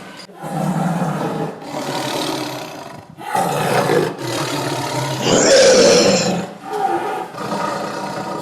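Tiger roaring, several deep roars one after another with short breaks between them, the loudest about two-thirds of the way through.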